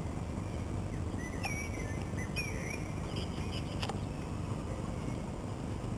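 A few short, high bird chirps near the middle, over a steady low background rumble; a single sharp click comes about four seconds in.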